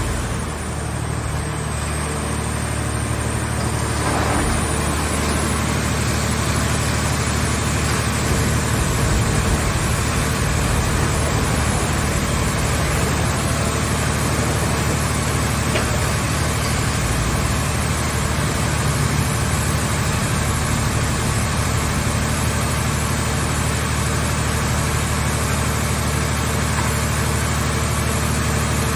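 Car shell scrap baler's power unit running steadily with a constant low, engine-like hum.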